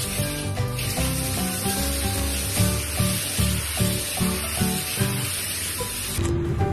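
Handheld shower head spraying water onto a dog's wet coat: a steady hiss that cuts off about six seconds in, over background music with a regular beat.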